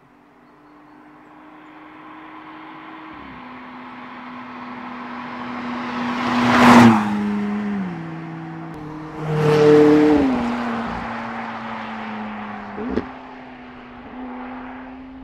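McLaren 675LT Spider's twin-turbo V8 approaching at speed and passing close by twice, loudest about seven and ten seconds in, its note stepping down in pitch several times and dropping as it goes past. A short sharp crack near the end, then the engine fades away.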